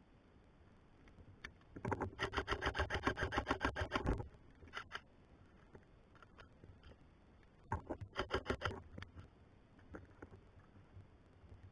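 Airsoft electric gun firing on full auto: a burst of about two seconds, then about a second later a shorter burst of about one second, at roughly ten shots a second. A few single clicks come in between.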